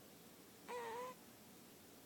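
Sleeping cat snoring: one short, high-pitched squeaky tone of about half a second, a little under a second in, over faint background hiss.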